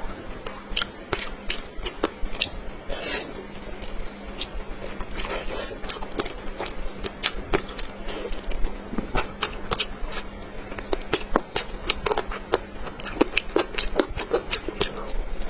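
Close-miked eating sounds: a dense run of chewing, biting and wet mouth clicks, irregular and continuous, over a faint steady low hum.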